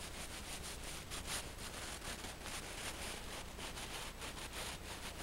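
Snow saw drawn along the buried surface hoar layer at the base of an isolated snow column in a propagation saw test: short repeated scraping strokes, a few a second.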